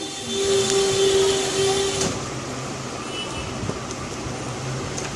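Steady motor drone with a hum tone, louder for the first two seconds, and a single light click about two seconds in.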